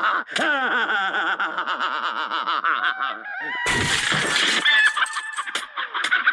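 Cartoon crash of wooden fence boards smashing as a farm machine bursts through, coming suddenly a little past halfway and lasting about a second. Chickens squawk after it, and before it there is a run of quickly falling pitched sounds.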